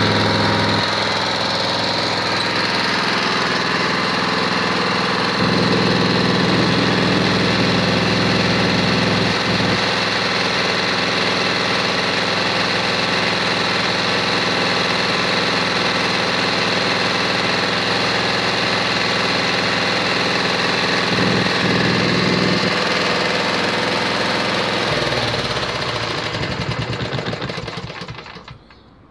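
A 2014 Power Devil lawnmower's 3.5 hp overhead-valve petrol engine idling steadily. Near the end it slows unevenly and stops.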